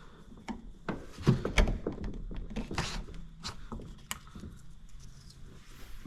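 A series of light knocks and clicks, loudest about a second and a half in, from small rubber grommets being worked and popped out of a car door.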